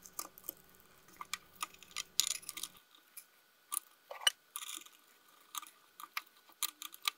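Scattered small clicks, knocks and scrapes of a plastic radio case and circuit board being handled and fitted back together, with a few brief scraping patches in the middle.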